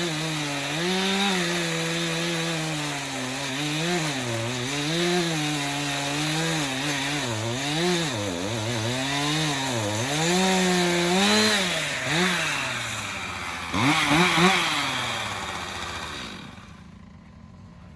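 Chainsaw running through a cut in wood, its engine note repeatedly dragging down under load and recovering. It revs briefly near the end, then stops. The owner suspects the chain is not getting oil, the bar oil frozen in the cold.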